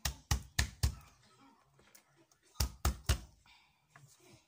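Kitchen knife chopping onion on a plastic cutting board: four quick knocks at the start, then three more about two and a half seconds in.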